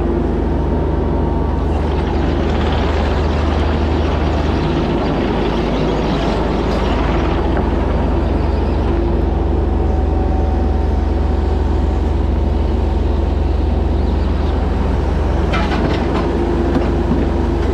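A diesel engine running steadily under load, with a strong low hum and a constant mechanical rattle.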